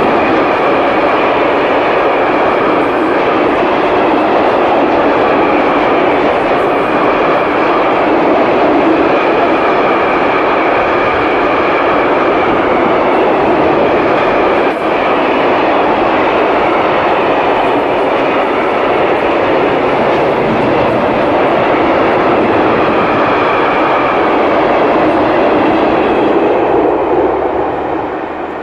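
Freight train of Eas open wagons loaded with coke rolling past, with steady wheel and rail noise that fades away near the end.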